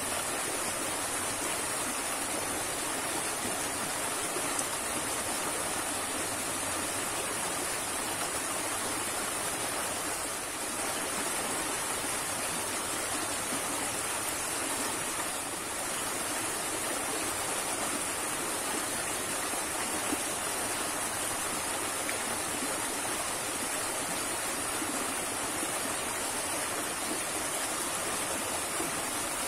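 Small river rushing and churning over rocks, a steady, unbroken sound of running water.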